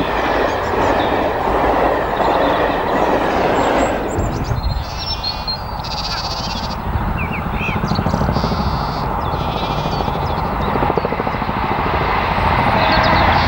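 The Flying Scotsman, a three-cylinder steam locomotive, running past at speed with its train. The loud rolling noise drops after about four seconds to a lower, steady rumble as the train moves away.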